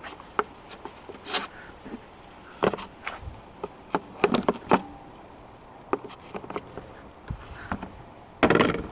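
Scattered clicks, taps and short scrapes of hand work on a car's plastic tail light assembly as its fasteners are worked loose, with a louder rustle near the end.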